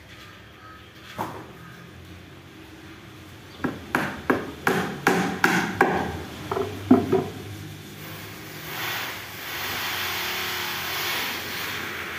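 Hammer striking the top of a wooden drawer box: a single knock about a second in, then a run of about a dozen quick blows, roughly three a second. A steady hissing noise sets in about two-thirds of the way through.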